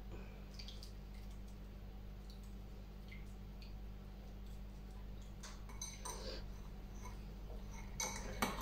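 Metal spoon pressing and scraping grated raw potato pulp against a small wire-mesh sieve to squeeze out its juice: faint scattered clicks and scrapes, busier in the last few seconds, over a steady low hum.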